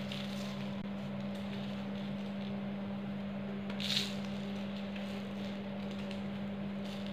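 A hand squeezing and crunching loose powdered gym chalk, soft gritty crunches with one louder squeeze-crunch about four seconds in. A steady low hum runs underneath.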